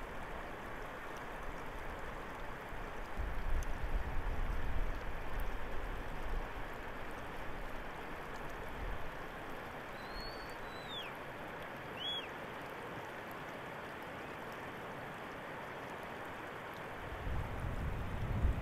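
Mountain stream flowing with a steady rush. A low rumble swells about three seconds in and again near the end, and two short high chirps come about ten and twelve seconds in.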